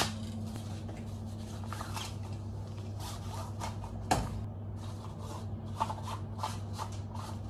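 Fabric rod cover rustling and rubbing as a fishing rod is slid into it, in scattered soft strokes with a louder swish about four seconds in, over a steady low hum.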